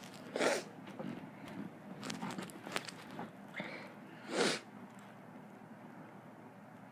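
A person's short, sharp breath bursts, two of them about four seconds apart, in the lull after a sneeze, with light clicks and rustling between them.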